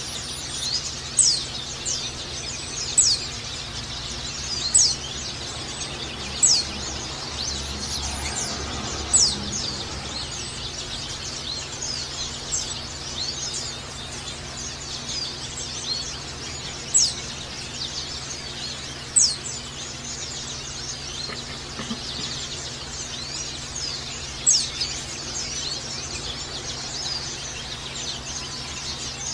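White-eye (pleci) giving sharp, falling 'ngecal' chirps, about every two seconds at first and sparser later, over a steady high twittering.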